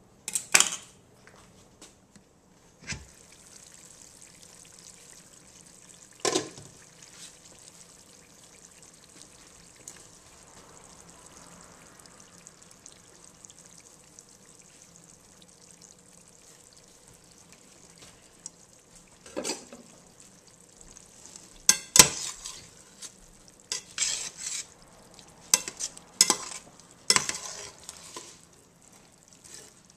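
Beef and chorizo with chopped onion sizzling steadily in a stainless steel pan, with a sharp knock right at the start and another about six seconds in. From about two-thirds of the way through, a slotted metal spoon clatters and scrapes against the pan as the meat and onion are stirred.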